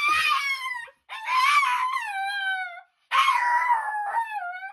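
Small tan short-haired dog howling and yowling, three drawn-out howls with brief pauses between them, each sliding down in pitch at its end.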